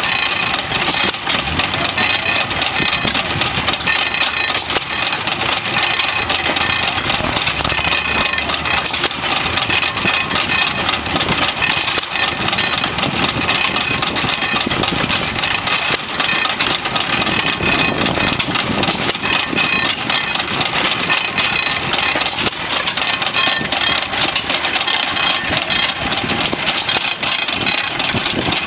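Economy single-cylinder hit-and-miss engine running, with a rapid, steady mechanical clatter, driving a pump jack that works a hand water pump.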